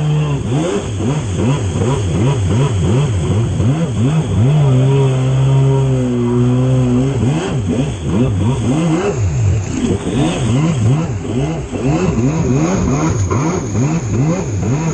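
Jet ski engine revving up and down about twice a second as the hull bounces over wake and chop, its pitch swooping with each bounce. Near the middle the note holds steady for a couple of seconds. Water rushes and sprays throughout.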